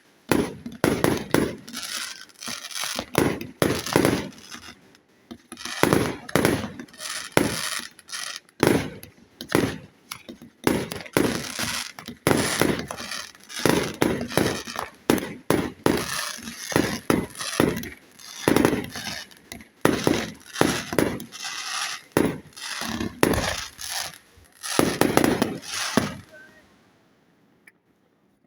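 Fireworks bursting in rapid, irregular succession, bang after bang with crackle between, then dying away about two seconds before the end.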